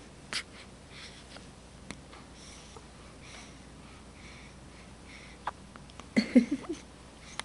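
Newborn baby hiccuping: a sharp hiccup about a third of a second in and fainter ones later, with soft breathing between. Near the end a louder hiccup runs into a short fussy vocal sound, and another hiccup comes just at the close.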